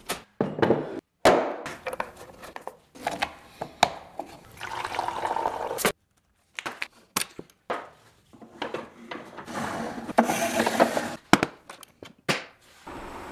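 Workshop handling sounds in short bursts, broken by brief silences: wooden knocks and clicks as a plywood steam box is set up, a plug pushed into an extension cord, and the box's hinged plywood door opened to load thin oak strips.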